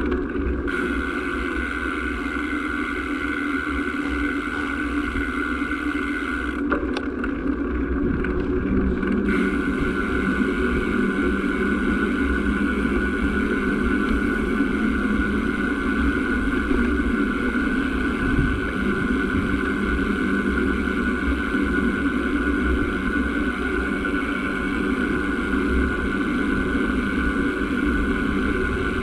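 A vehicle's engine running steadily with a constant drone while travelling along a road, getting a little louder with a lower note added about nine seconds in.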